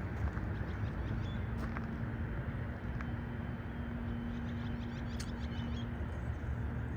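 Outdoor ambience: a steady low rumble with a faint steady hum from about one to six seconds in, and faint bird chirps near the middle.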